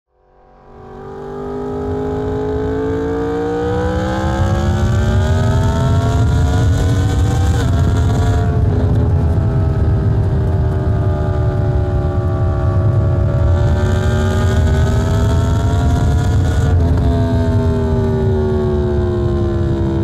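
Yamaha MT-10's crossplane inline-four engine under load while riding, its note climbing steadily. It drops in pitch with upshifts about 8 seconds and again about 17 seconds in, with wind rush over it. The sound fades in at the start.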